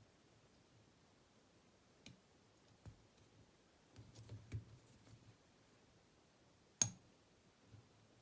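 Faint metallic clicks and scratches of a lock pick and L-shaped tension wrench working inside a lever lock's keyway: a few scattered clicks, a short cluster of light taps after about four seconds, and one sharper, louder click later on.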